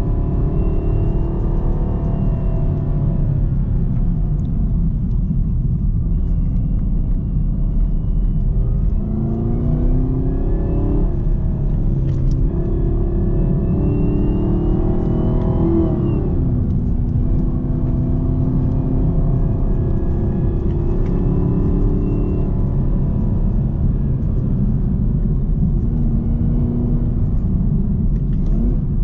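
2018 Camaro ZL1's supercharged 6.2-litre V8 under varying throttle: a steady deep rumble, with the engine note climbing twice and dropping sharply about sixteen seconds in. A thin supercharger whine rises and falls with the revs above it.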